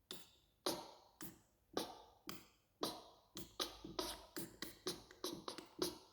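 Beatboxing: a mouth-made drum rhythm of sharp clicks and hits, about two a second at first, growing faster and denser from about halfway through.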